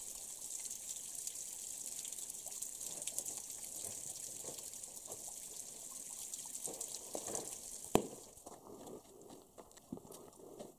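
Water trickling and splashing steadily down a rock face into a shallow pool; the sound stops abruptly with a click about eight seconds in, followed by a few faint steps on stony ground.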